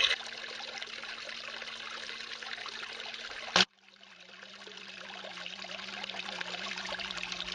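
Water running through a small homemade drop riffle sluice, a steady trickling flow. About three and a half seconds in it breaks off with a click, then fades back in.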